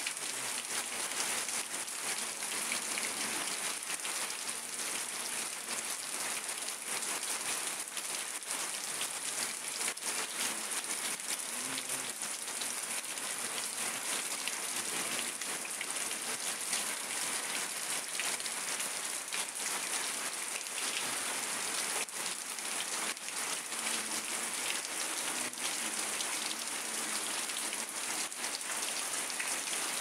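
Steady rain falling: a dense, even hiss with many individual drops ticking close by.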